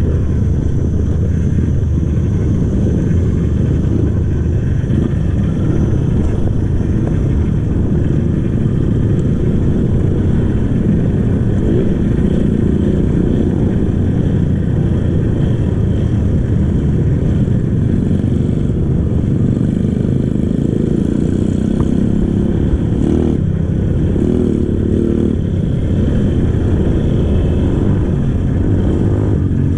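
Kawasaki KLX trail bike's single-cylinder four-stroke engine, on its stock exhaust, running steadily under load while riding.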